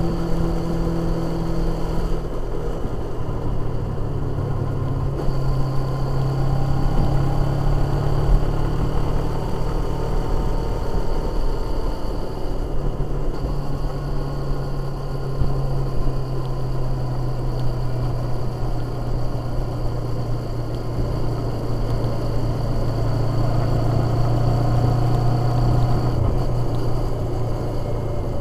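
Motorcycle engine running at road speed with steady wind rush, its note shifting a little in pitch as the throttle changes.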